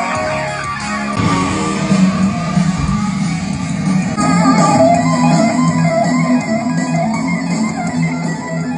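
Guitar-led music playing, with a fuller low end coming in about a second in.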